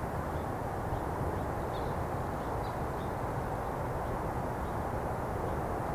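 Steady outdoor background rumble, with a few faint, short, high bird chirps scattered through it.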